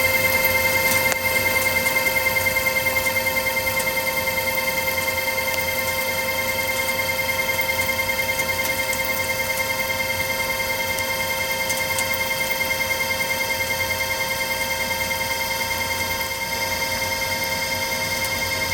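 Precision Matthews metal lathe running under power with a steady whine and a fast even pulsing, over a hiss from the cutting tool facing a steel pipe flange.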